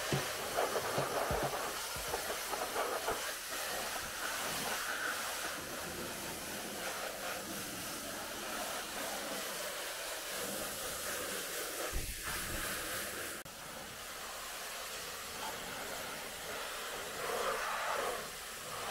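Pressure-washer water jet hissing steadily as it sprays onto a car's body panels, with one brief thump partway through.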